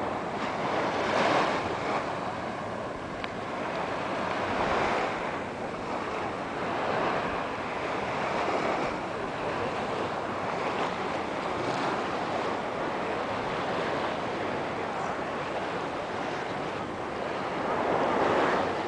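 Small sea waves washing in shallow water with wind on the microphone, a steady rush that swells every few seconds and is loudest near the end.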